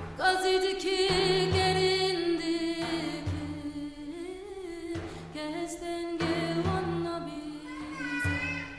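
A woman's voice singing a Kurdish Alevi devotional song, holding long ornamented notes with a wavering vibrato, over low drum beats.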